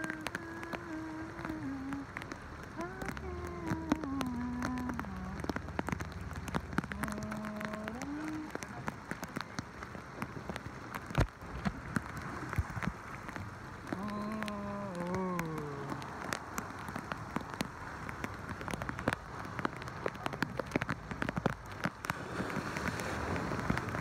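Heavy tropical rain pelting the sea and a small open boat: a steady hiss of rain with many sharp drop ticks.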